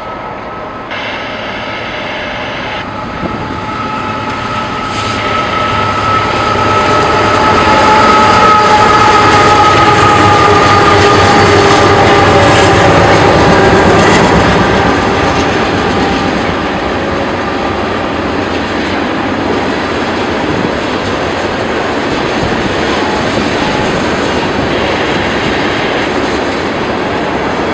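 Loaded freight oil train passing: the BNSF diesel locomotives approach and go by, loudest about 8 to 14 seconds in, with engine whine slowly dropping in pitch as they pass. The loaded oil tank cars then keep rolling by on the rails at a steady level.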